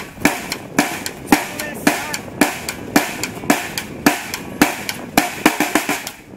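Live band playing an instrumental passage: a drum kit keeps a steady beat of about two hits a second under strummed acoustic guitar.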